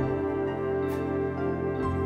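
Jazz big band of saxophones, trumpets, trombones, piano, bass and drums playing a slow passage in long held chords, the harmony shifting about the start and again near the end.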